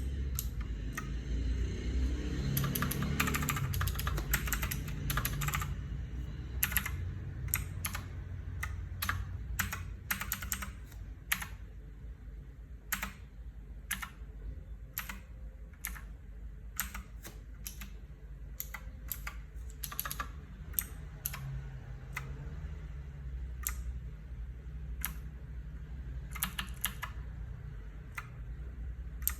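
Typing on a mechanical keyboard with clicky Huano Blue switches: a quick flurry of keystrokes a few seconds in, then single key clicks spaced out irregularly, with a short burst again near the end.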